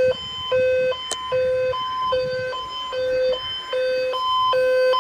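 Emergency alert tone stepping back and forth between a low and a high pitch, one step about every 0.4 s, sounding the start of a severe thunderstorm warning broadcast. A single faint click comes about a second in.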